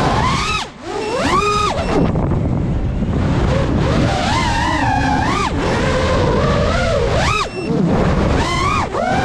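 FPV freestyle quadcopter's brushless motors and propellers whining, the pitch sweeping up and down with each burst of throttle, over a steady rush of air. The sound drops out briefly near the start and again about seven and a half seconds in, where the throttle is cut.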